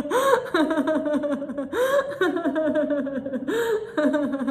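A woman laughing hard in a laughter-yoga exercise: rapid runs of 'ha ha ha' pulses, broken about every one and a half seconds by a sharp, gasping breath in.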